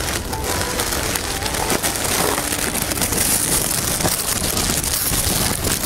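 Pen scratching across paper in continuous writing strokes, close to the microphone: a dense, even scratching.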